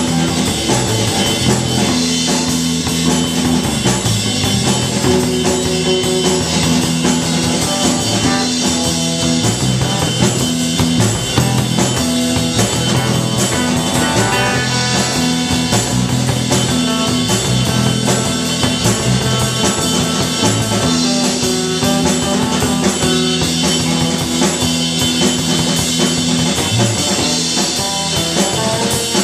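A live rock band playing, with a drum kit and an electric guitar through an amplifier.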